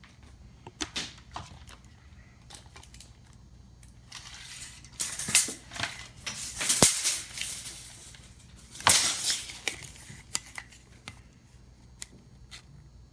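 Handling noise while a cable is measured: scattered sharp clicks, with louder rattling scrapes about five to seven seconds in and again about nine seconds in.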